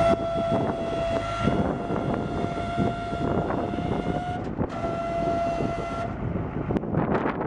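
Horn of a 1982 Ford 7000 truck sounding in one long steady blast. It breaks off about four and a half seconds in, then gives a second, shorter blast that stops about six seconds in, over a steady low rumble.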